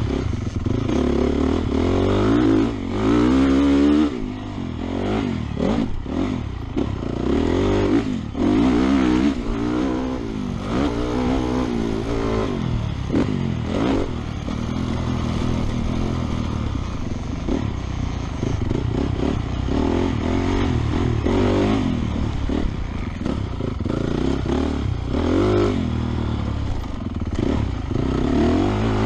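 Honda 450 single-cylinder four-stroke motocross engine under race throttle, its pitch climbing and falling again and again as it is revved out and backed off through corners and down the straights. There are short throttle cuts several times along the way.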